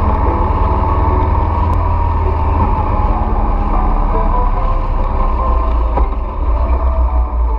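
Motorcycle riding along at road speed: steady engine and wind rumble on the bike-mounted camera, turning more uneven and gusty about six seconds in.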